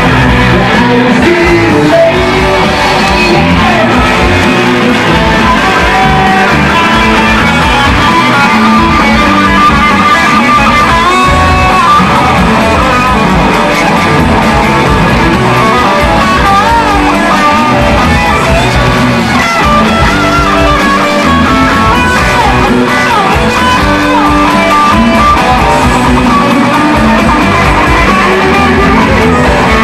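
Live rock band playing: electric guitars up front over bass guitar, keyboards and drums, with a wavering lead melody through the middle.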